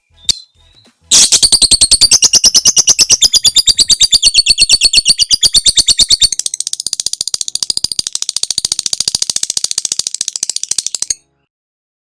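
Lovebird's ngekek call: a long, rapid chattering trill of high-pitched notes that runs for about ten seconds and changes character about halfway, then cuts off suddenly near the end. It follows a few short chirps.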